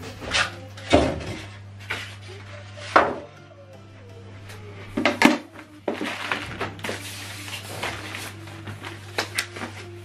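Packaging being handled during an unboxing: rustling plastic wrap and foam packing with a run of sharp knocks and clatters as items are moved and a soundbar is lifted out, over a steady low hum.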